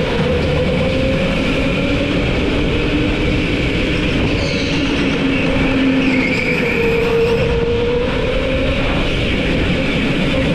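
Go-kart engine running steadily at speed, its pitch wavering a little, over a continuous rattling rumble.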